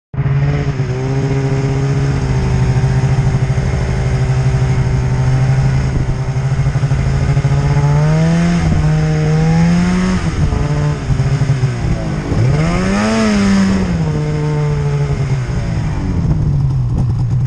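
Polaris RMK mountain snowmobile's two-stroke engine running under throttle through deep powder. It holds a steady pitch, then revs up about eight seconds in, dips and swells again around thirteen seconds, and settles back near the end.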